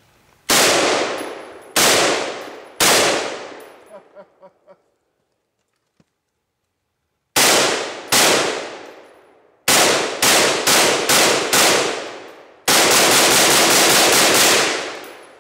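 Semi-automatic M1A (M14-type) rifle in .308 firing. Three shots come about a second apart, then after a pause of several seconds two more, a quicker string of six, and near the end a rapid run of shots that blur together for about two seconds.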